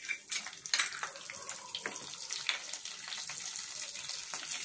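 Curry leaves spluttering in hot oil with mustard seeds, urad dal and cumin in a kadai: a few sharp pops in the first second as they hit the oil, then a steady crackling sizzle that grows louder.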